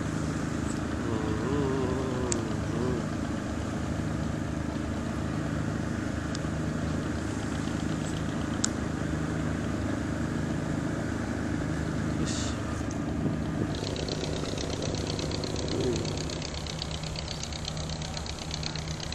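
An engine idling steadily, a low even hum, with a few faint sharp clicks over it.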